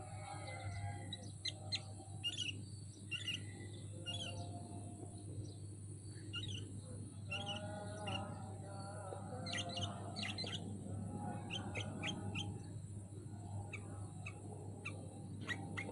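Sooty-headed bulbuls (kutilang) singing: short, rapid chirps and brief warbled phrases, several birds overlapping. Behind them runs a steady high hiss and a low hum.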